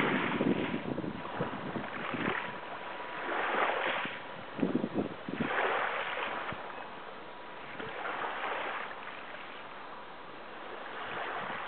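Small sea waves lapping and washing, swelling and fading every couple of seconds, with wind buffeting the microphone.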